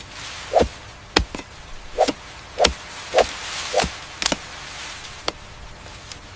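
A freshly sharpened hand blade chopping through sugarcane stalks: about eight sharp strokes, roughly one every half second to second, several with a short hollow knock.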